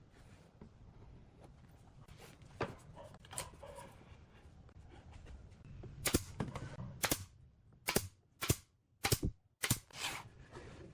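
A series of sharp knocks or impacts on wood during woodworking: two faint clicks in the first half, then about eight sharp, irregularly spaced knocks in the second half.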